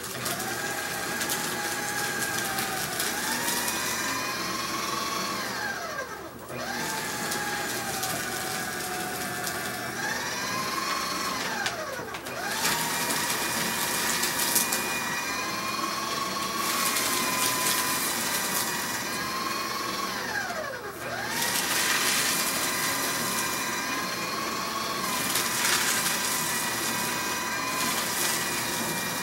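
Small electric paper shredder running with sheets of paper being fed through and cut. Its motor whine sweeps down and back up about three times as it winds down and restarts.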